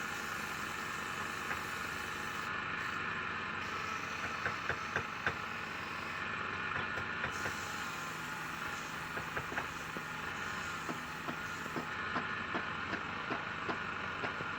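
Wood lathe running steadily as a palm-wood bowl is turned, with a few light sharp ticks about four seconds in and a quicker run of them near the end.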